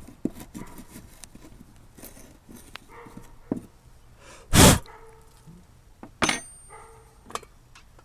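A small metal tool scraping and tapping at charred graphite residue burnt into a wooden tabletop, with light clicks and scratches. A loud short thump comes about four and a half seconds in, then sharp knocks about six and seven seconds in, with a few brief pitched sounds between them.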